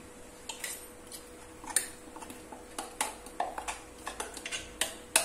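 A metal spoon scraping and knocking inside a stainless steel mixer-grinder jar as thick ground batter is scooped out: a run of irregular sharp clicks and scrapes that starts about half a second in and comes faster near the end.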